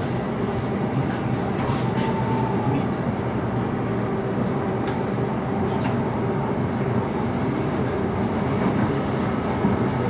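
Interior running noise of a JR East E233-3000 series electric train at speed: a steady rumble of wheels on rail, with faint steady tones from the traction motors.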